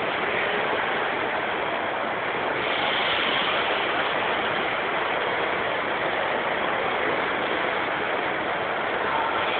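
Steady, even din of a busy exhibition hall, with no distinct knocks, tones or voices standing out.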